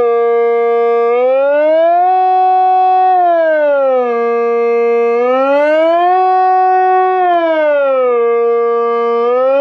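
Kockumation TK-150 mobile siren sounding a rising and falling alarm wail. It holds a high note for about a second, slides down to a low note, holds it, then slides back up, repeating about every four seconds.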